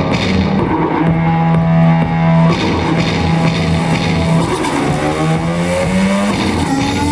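Loud rock-style music track with electric guitar and a drum-kit beat, held bass notes, and rising gliding tones near the end.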